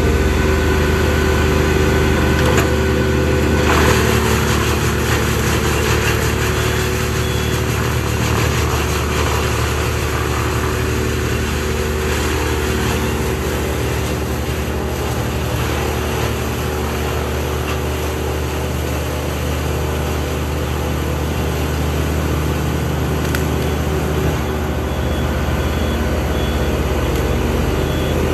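Steady drone of diesel engines: a Schäffer 2428 mini loader driving with brush in its grapple, over a large Bandit brush chipper running at constant speed. A rougher rushing noise comes in about four seconds in and fades by about twelve seconds.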